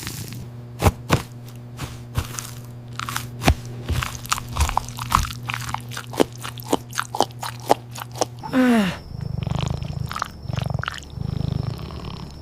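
Crunchy biting and chewing of a burger: a quick, irregular run of sharp crunches over a low steady hum. About eight and a half seconds in, a cat's short call falls in pitch, and low rhythmic purring follows.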